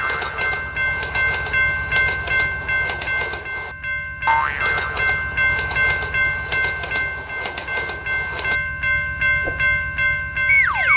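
Railroad level-crossing warning bell ringing in a steady rhythm over the low rumble and clatter of a passing train. A short rising tone sounds about four seconds in, and near the end a run of quick falling tones begins.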